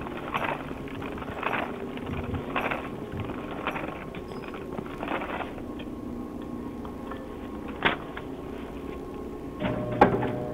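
A vehicle's steady running hum with scattered knocks and handling noises. One thump comes about eight seconds in and a sharp click near the end.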